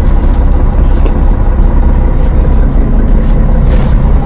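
Coach bus engine running, a steady low rumble with a faint steady hum, heard inside the passenger cabin.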